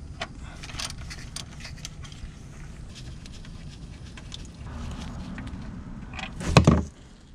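Small clicks and scrapes as a metal drain plug, already broken free, is turned out by hand from the Gen 4 Coyote's metal oil pan, with one brief louder noise about six and a half seconds in.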